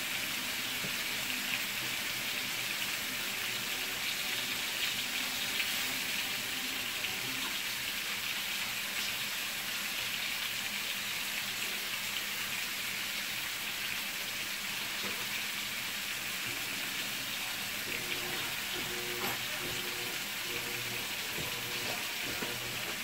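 Chicken frying in a pan, a steady sizzling hiss.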